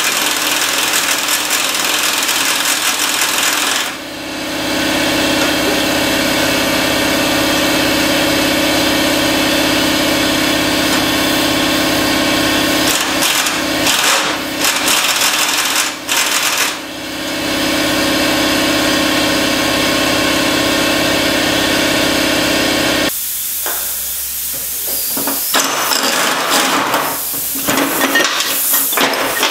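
Impact wrench hammering on the mower-deck spindle nuts to take the pulleys off. It runs in long steady runs broken by brief pauses, then in shorter, choppier spurts from about 23 seconds in.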